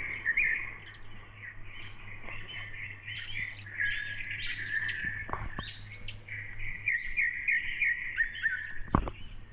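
Many small birds chirping and trilling together in a dense, overlapping chorus. A sharp knock sounds about five seconds in, and a louder one near the end.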